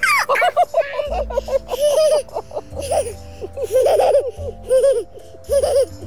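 A young girl laughing hard in several runs of quick, high-pitched giggles, with short breaks between them.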